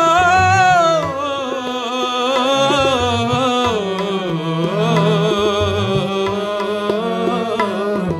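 Sikh kirtan: a male voice holding a long, wavering, ornamented sung line over a sustained harmonium, with tabla accompaniment.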